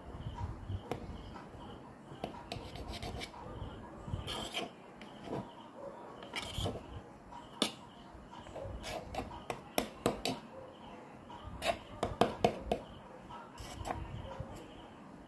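A kitchen knife sawing through a baked banana cake in its pan: the blade rasping and scraping through the crust in irregular strokes, with sharp clicks as it knocks against the pan, most of them in a quick cluster near the end.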